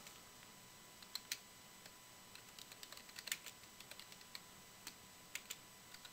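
Faint computer keyboard typing: a run of sharp key clicks, densest a couple of seconds in, with a few separate presses near the end.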